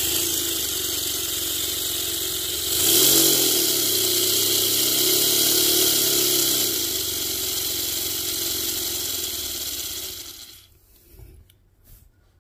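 Paper model inline twin air engine running on compressed air: a loud rush of air with a steady buzz. It gets louder about three seconds in and cuts off about ten seconds in.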